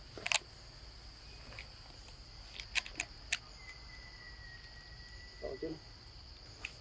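Steady high-pitched insect drone, over which come a few sharp clicks: the loudest about a third of a second in, three more around the three-second mark. A faint thin steady tone runs through the middle, and a short low sound comes near the end.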